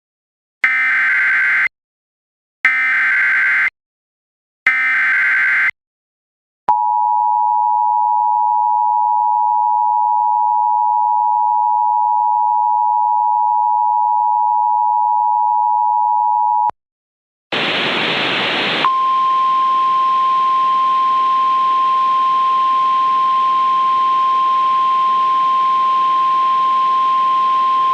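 Emergency Alert System tones: three short bursts of SAME header data, then the two-tone EAS attention signal held for about ten seconds. After a brief gap comes a burst of radio static, then the single steady NOAA Weather Radio alert tone over a hiss.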